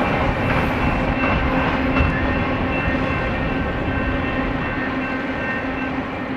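BNSF double-stack intermodal freight train receding just after its last car has passed: a steady rumble and rail noise with a faint ringing hum, slowly fading.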